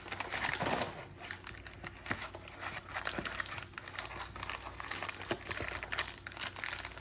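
Plastic snack packaging crinkling and crackling as it is handled, in an irregular run of rustles and small clicks.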